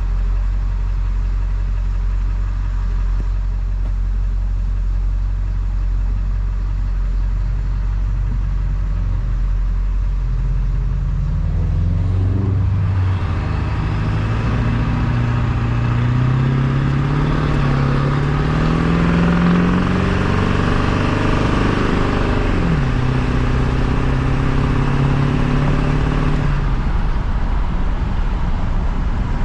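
2000 Ford F-350's 7.3 L Powerstroke turbo-diesel V8, straight-piped with the muffler deleted, running steadily at low revs. About twelve seconds in it accelerates: the engine note climbs with a loud turbo whistle and hiss over it, drops briefly as the automatic shifts, then climbs again before settling back near the end.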